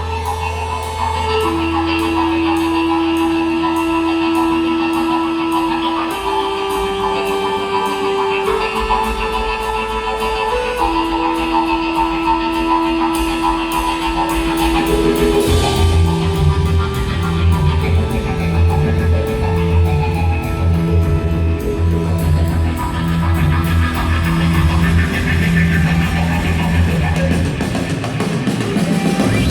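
Heavy fuzz-rock band playing live: long held guitar notes over a low drone, then about halfway in the bass and drums come in with a heavy pulsing riff.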